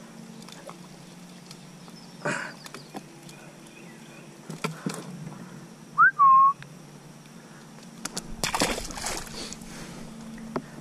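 A person whistling one short note about six seconds in, sliding up and then held briefly. It is loud and close. A short stretch of rustling noise comes near the end.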